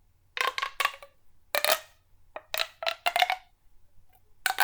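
An extendable fidget toy being pulled out and pushed back in: several short bursts of rapid clicking and popping, a sound that is called 'so weird'.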